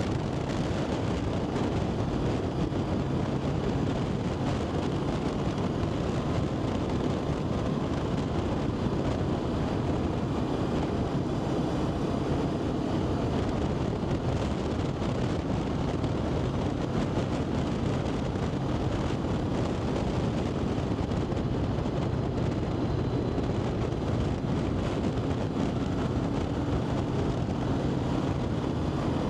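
Vehicle engine running steadily on the move with heavy wind rush over the microphone, a constant hum under the roar of the wind.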